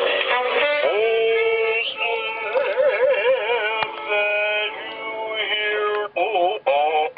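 Music with a synthetic-sounding sung voice, the pitch wavering in vibrato, breaking into short separate notes near the end.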